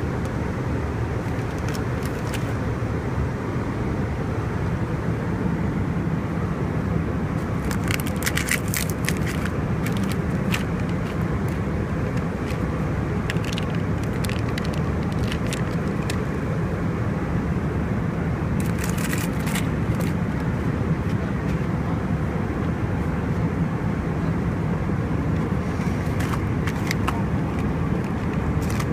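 Steady low roar of an Airbus A319 cabin in cruise, heard from a rear economy seat, with several short spells of plastic snack-wrapper crinkling as a snack pack is opened and handled.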